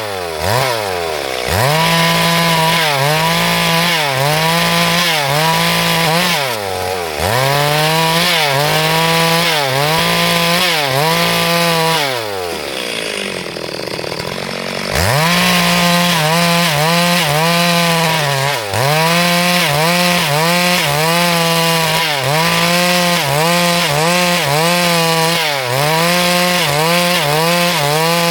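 Chainsaw cutting a log lengthwise at high revs, its engine pitch sagging and recovering about once a second as the chain bites. About twelve seconds in it drops to lower revs for a couple of seconds, then revs back up into the cut.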